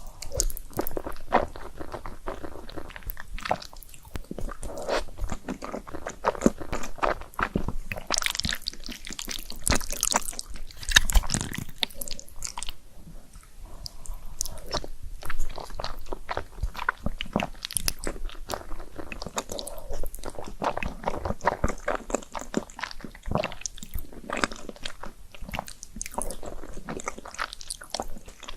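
Close-miked eating: a person biting and chewing, with dense, irregular crunches and mouth clicks.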